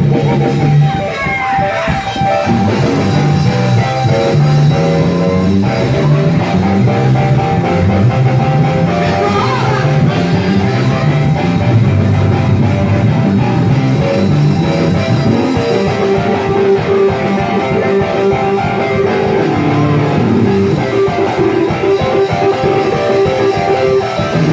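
Church band playing an instrumental vamp: a stepping bass line under held organ-like chords, with electric guitar and drums.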